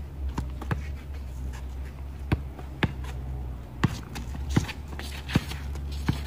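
Basketball dribbled on a concrete driveway: sharp bounces at uneven intervals, over a steady low hum.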